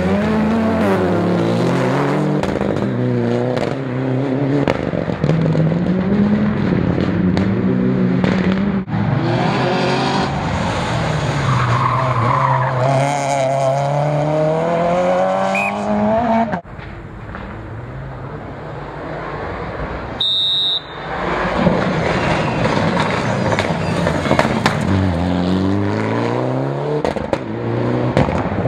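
Rally cars driving flat out one after another, engines revving up and falling back through the gear changes, with tyres skidding. There is a quieter stretch a little past the middle when a car is further off.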